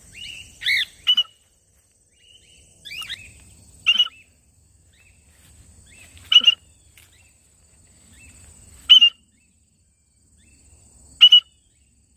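Cockatiels calling: short, loud contact calls about every two to three seconds. A faint steady high-pitched tone runs behind them.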